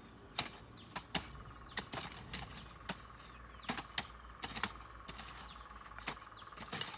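Hand hoes chopping into the soil of a chili bed: sharp, uneven clicks and knocks about one or two a second. Under them runs a steady high-pitched drone, with faint bird chirps.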